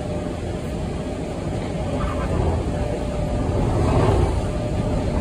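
Seoul Subway Line 2 electric train running, heard from inside the car: a steady low rumble from the wheels and running gear with a thin, steady hum above it.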